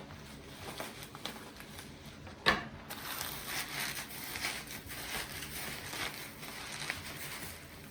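Packaging being unwrapped by hand: irregular rustling and crinkling of wrapping material, with one sharp snap about two and a half seconds in.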